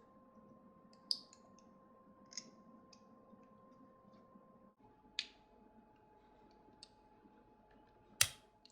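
A few sharp clicks and taps of small hard parts being handled, about five spread over several seconds, the last near the end the loudest, over a faint steady hum.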